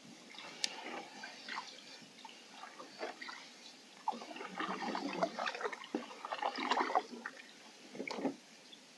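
Canoe paddle dipping and pulling through calm water: gurgles, small splashes and drips off the blade, with the busiest stroke between about four and seven seconds in.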